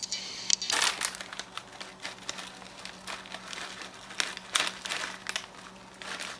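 Plastic chip bag of Hot Cheetos crinkling in irregular bursts as it is handled and tipped to shake out chips, after a short rustle at the start.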